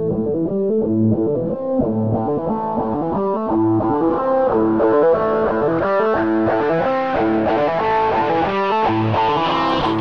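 Background music led by guitar: a rock track with plucked and strummed electric guitar notes in a steady pattern.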